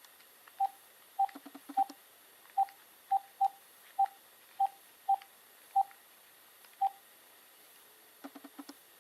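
A telephone number being keyed in: eleven short, same-pitched keypad beeps at an uneven pace, with a few soft clicks near the start and end.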